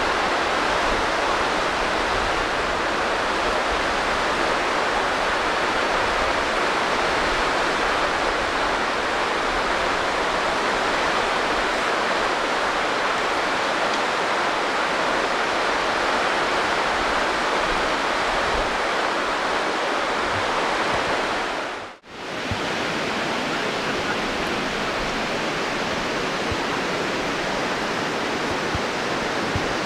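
Steady rush of flowing water from a stream, cutting out for a moment about two-thirds of the way through and then carrying on.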